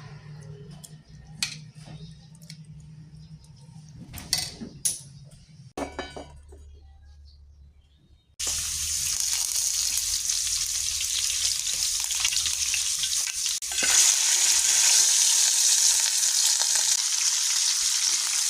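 A few light clinks and knocks over a low hum. Then, about eight seconds in, a sizzle of food frying in hot oil starts suddenly and runs on, growing louder a few seconds later.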